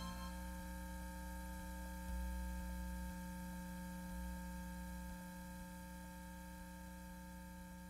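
Steady electrical hum with a faint low rumble underneath, slowly fading away. The last of a music track dies out right at the start.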